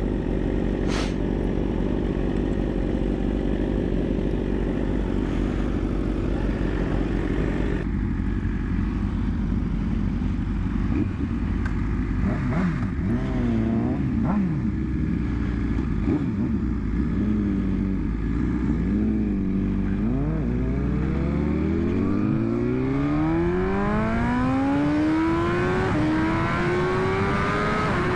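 2021 BMW S1000RR's inline-four engine under way. It holds steady revs at first, then the revs rise and fall repeatedly with throttle changes, and from about twenty seconds in they climb in one long rise under acceleration.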